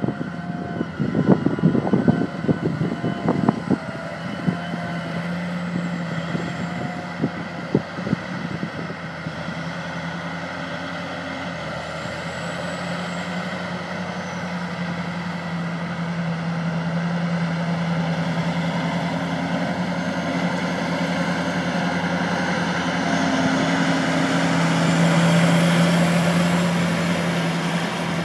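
Diesel engine of a tracked tractor towing two tandem earthmoving scrapers, running steadily under load and getting louder as the rig comes close about three-quarters of the way in. Wind buffets the microphone with low thumps in the first few seconds.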